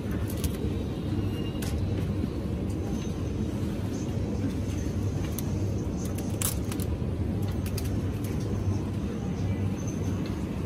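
Supermarket ambience: a steady low hum under a scattered handful of light clicks and clatters, the sharpest about six and a half seconds in.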